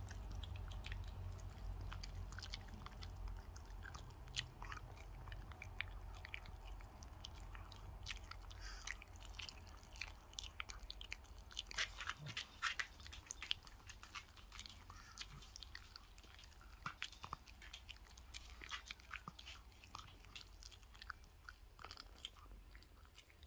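Small dog chewing and crunching raw chicken on the bone: an irregular run of crunches and sharp clicks of teeth on bone. A low hum sits underneath and weakens about halfway through.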